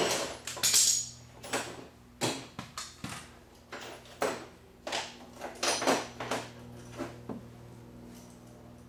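Irregular metal clinks and clanks of a socket and ratchet being handled during brake caliper work, about a dozen over the first seven seconds, then dying away.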